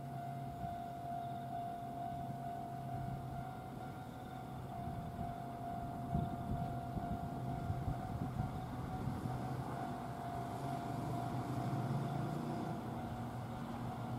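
Low rumble of a Kintetsu limited express train approaching from a distance, growing slightly louder from about halfway in. A steady high-pitched tone sounds over it.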